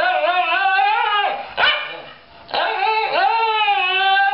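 Shiba Inu–American Eskimo mix dog vocalizing to demand its dinner: a long drawn-out call that wavers in pitch, a short bark about a second and a half in, then a second long, wavering call.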